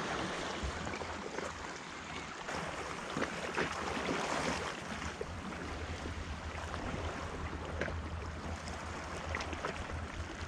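Sea water washing and lapping against shore rocks: a steady, even wash with a few faint small splashes.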